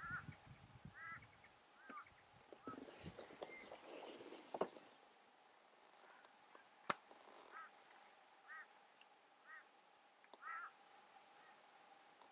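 Insects chirping in a steady high pulsing rhythm, two or three pulses a second, with short lower chirping calls about once a second. Two sharp clicks sound in the middle, and a low rumble runs through the first few seconds.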